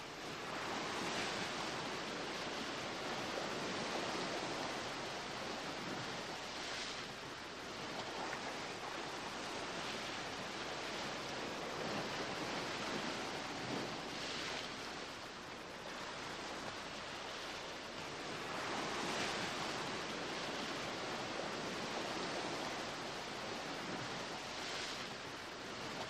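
Sea surf breaking and washing over shore rocks: a steady rushing hiss of water that swells louder every five or six seconds as each wave comes in.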